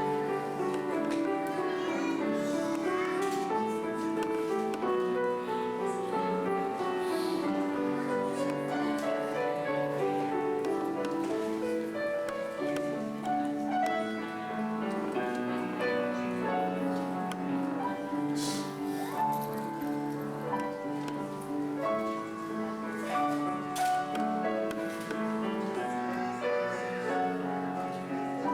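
Instrumental music with a steady succession of held notes.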